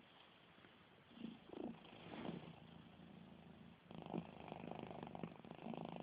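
Pet cat snoring: faint rattling breaths, a few short ones in the first two seconds, then a steadier, louder rattle from about four seconds in.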